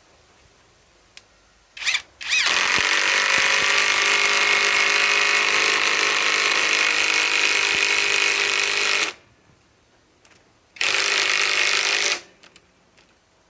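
Bauer 2085C cordless impact wrench hammering as it drives a fastener. There is a short blip about two seconds in, then about seven seconds of continuous impacting, then a second run of about a second and a half near the end.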